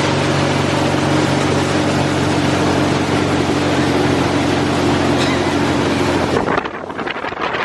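An engine running steadily under a loud rushing noise, cutting off abruptly about six and a half seconds in.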